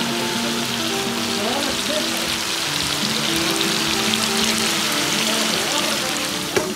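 Karahi of meat, tomatoes and green chillies sizzling in oil in a steel wok over a gas flame, a steady frying hiss, with background music.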